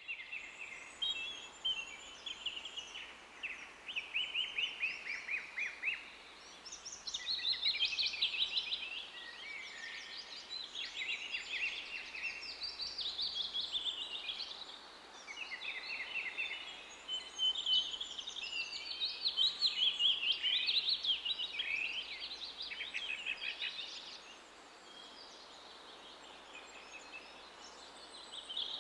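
Small songbirds singing: a dense, continuous chorus of quick chirps and trills, easing off for a few seconds near the end.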